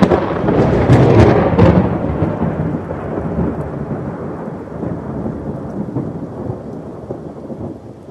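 Thunder rumbling, loudest in the first two seconds and slowly dying away, over steady rain.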